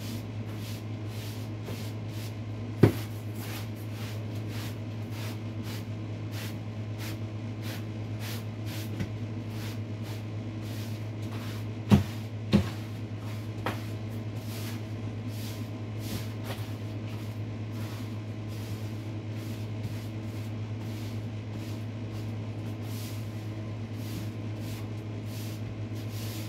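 Broom sweeping a floor in short strokes, about two a second, over a steady low hum. Three sharp knocks stand out, one about three seconds in and two close together about twelve seconds in.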